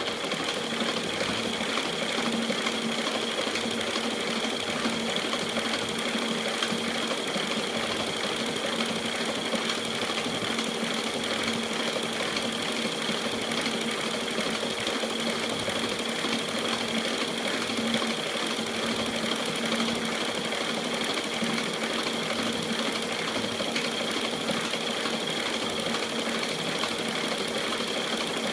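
E1N lathe running steadily, a constant machine hum with a steady high whine over it.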